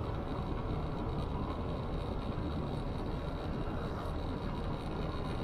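Motorcycle cruising at a steady speed, heard from on the bike: a steady low rumble of engine and road with a faint steady high whine over it.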